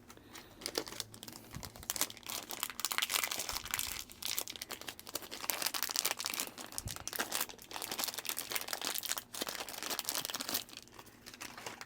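Crinkly rustling and many small irregular clicks from hands handling new watch spring bars and small watch parts.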